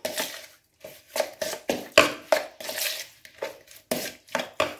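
Raw cubed chicken being mixed by hand with a wet marinade in a plastic bowl: a quick, uneven series of wet slaps and squelches, about three a second.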